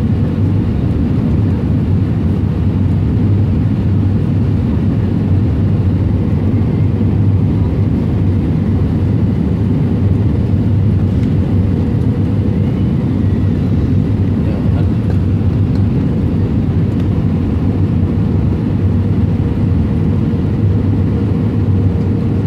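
Steady cabin roar of an Airbus A320 airliner on final approach with flaps down: engine and airflow noise heard from inside the cabin, a deep even rumble with a faint steady hum above it.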